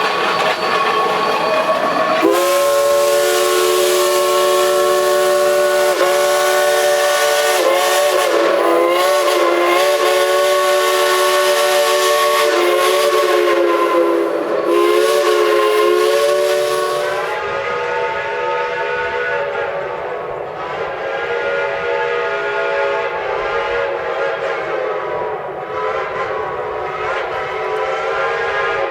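Steam locomotive whistle blowing a long chord of several tones at once, beginning about two seconds in, its pitch wavering as the valve is worked. About two-thirds of the way through the sound changes to a softer whistle with a different chord, blown in a few longer and shorter blasts.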